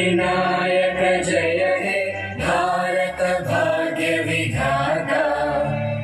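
Voices chanting or singing in long held notes, each lasting about a second, with a short break about two and a half seconds in.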